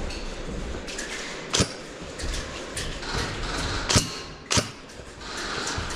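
Airsoft guns firing in a large hall: three sharp single cracks, one about one and a half seconds in and two close together around four seconds in, with a few fainter snaps between them.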